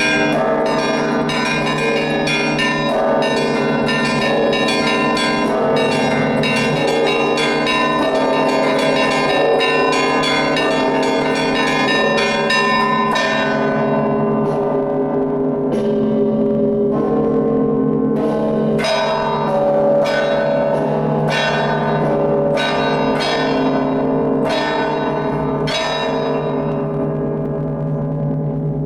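Russian Orthodox church bells rung by hand in a trezvon peal: rapid, dense strikes of the smaller bells over the deep, sustained hum of the large bells. About halfway through the strikes thin out to slower, spaced blows, and near the end the bells are left to ring out.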